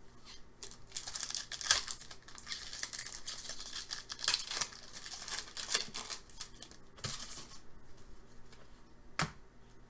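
A foil trading-card pack wrapper being torn open and crinkled by hand, with crackling and small clicks for several seconds. One sharp click near the end.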